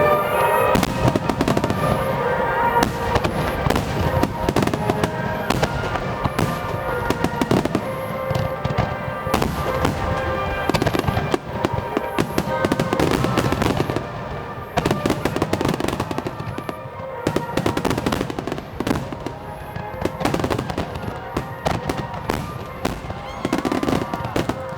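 Aerial fireworks bursting and crackling in dense, rapid succession, with music playing underneath.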